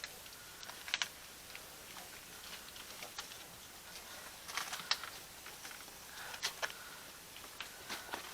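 Scattered, irregular faint clicks and taps, a few at a time with gaps between, the sharpest about a second in and again past the middle.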